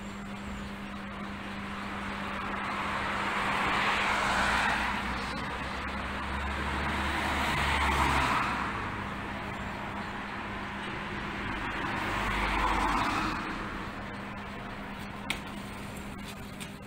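Street traffic: three vehicles pass one after another, each swelling and fading over a couple of seconds, over a steady low hum.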